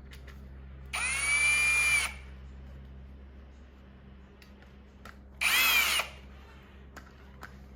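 Power drill-driver with a small Torx bit running screws back into a dishwasher's plastic control panel: two short runs, about a second in and again past the middle, the motor whine rising as it spins up and dropping as it stops.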